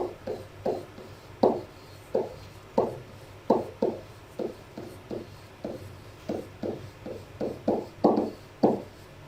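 A series of light, short taps, about two or three a second and fairly evenly spaced, some a little louder than others.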